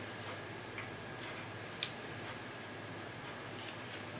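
A few light clicks from handling the flashlight and its charger, with one sharper click a little under two seconds in, over a faint steady hum.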